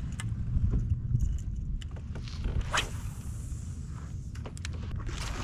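A fishing reel being cranked, giving scattered clicks and ticks over a low rumble.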